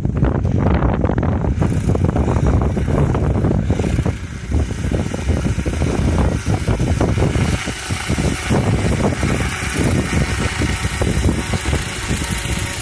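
Yanmar unmanned crop-spraying helicopter's engine and rotor running in low flight while seeding wheat. It grows brighter and closer as the helicopter approaches.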